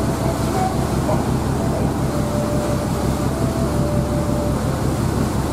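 Ferry engine running steadily under way, a constant low drone under an even rushing hiss.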